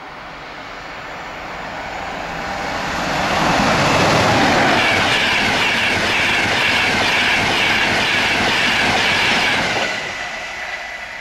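Class 91 electric locomotive and its Mark 4 coaches passing at speed. The wheel and rail noise builds over the first few seconds and stays loud with a fast rhythmic clatter as the coaches go by. It fades near the end as the locomotive at the rear draws away.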